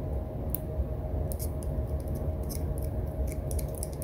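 Faint, light metallic clicks and ticks of a small driver bit turning a tiny pocket-clip screw into a Kershaw Leek knife's handle, over a steady low hum.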